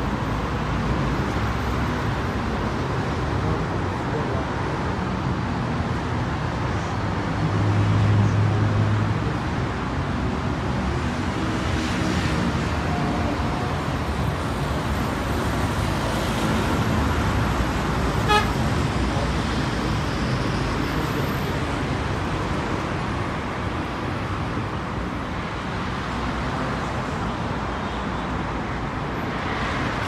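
Steady road traffic noise from cars passing on a busy street. About eight seconds in, a short, low vehicle-horn honk lasts about a second and a half, the loudest sound here. A little past halfway there is a single sharp click.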